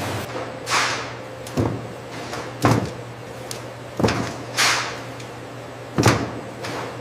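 Factory machinery: a steady low hum with repeated heavy clunks, about one every second or two, and a couple of short hissing bursts like released air or steam.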